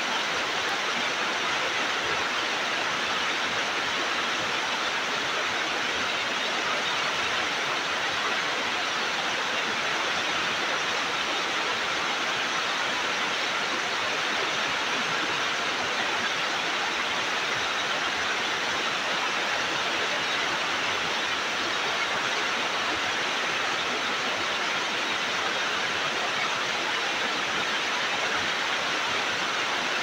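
Putna waterfall: water falling in a steady, unchanging rush, brightest in the hissy middle-to-upper range.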